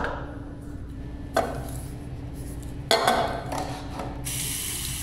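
Two short clattering sounds, then about four seconds in a chrome lever faucet is turned on and water starts running steadily into a restroom sink.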